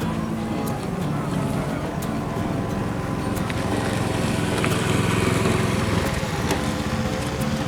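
A motor engine running steadily, with a few light clicks over it.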